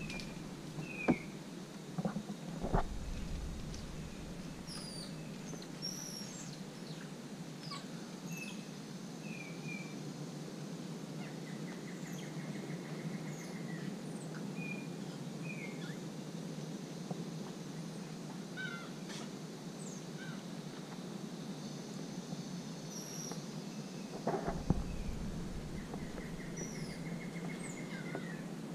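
Rainforest ambience: many short bird chirps and whistles scattered throughout, with a rapid trill heard twice, each lasting about two seconds, over a steady low background noise. A few sharp knocks near the start and again near the end.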